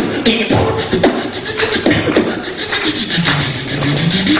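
Beatboxing: a fast, continuous run of drum sounds made with the mouth, mixed with sung or hummed tones, and a low hummed bass note that dips and rises near the end.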